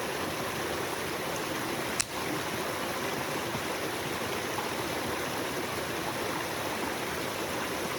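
A small stream flowing steadily, an even rushing of water, with one sharp click about two seconds in.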